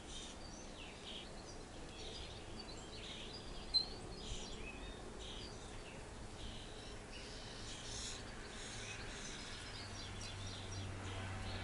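Birds chirping now and then over faint outdoor background noise, with a low steady hum joining about two-thirds of the way through.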